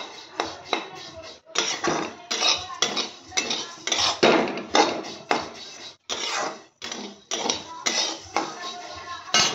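Metal spatula scraping and knocking against a metal kadhai in quick repeated strokes, about three a second, as dry vermicelli is stirred and roasted brown.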